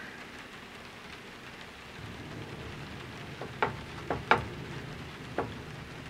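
Four light wooden knocks and taps as thin glued slats are set down and pressed onto a wooden panel, over a steady low hiss.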